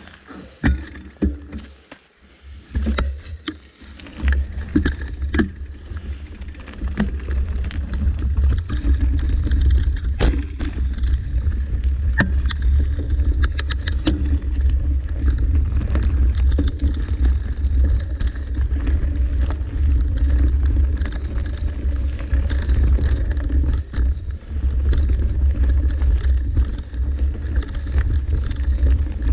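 Mountain bike ridden along a dirt singletrack: a steady low rumble of tyres rolling and air buffeting the mount, with frequent rattles and clicks from the bike over bumps. The first few seconds hold only scattered clicks, and the rumble comes in about three seconds in.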